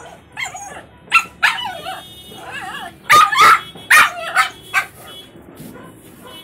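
A dog barking, a quick series of about eight short barks, loudest around three to four seconds in.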